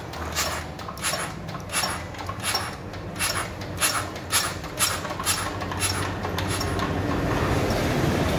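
Diesel injector nozzle on a Dongfeng R175 engine under a spray test: short, sharp hissing squirts of fuel, roughly one every two-thirds of a second, while the nozzle's spray is being set. Near the end the squirts stop and a steady low mechanical drone grows louder.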